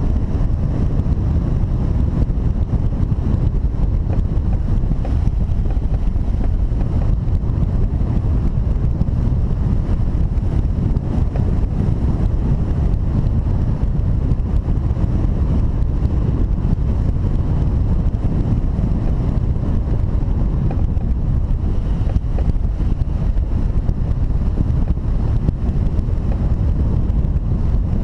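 Airflow buffeting the microphone of a camera mounted on a hang glider in flight: a steady, low wind noise with no pauses.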